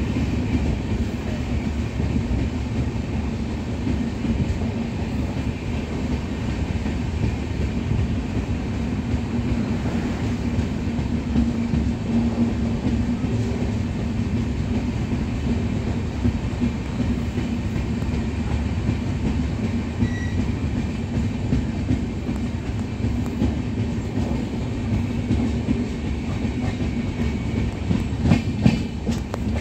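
Indian Railways passenger coach running slowly through a station, heard from inside at an open window: a steady rumble of wheels on rail with a constant low hum. A quick run of clicks from the wheels crossing rail joints comes near the end.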